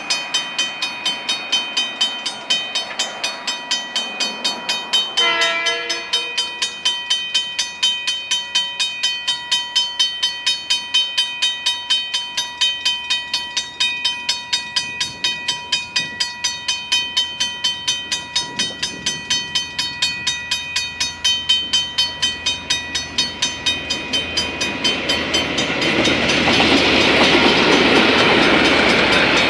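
Level crossing warning bells ringing rapidly, about three strikes a second. A train horn sounds briefly about five seconds in, and near the end the coal train's rumble and wheel noise grows loud as it reaches the crossing.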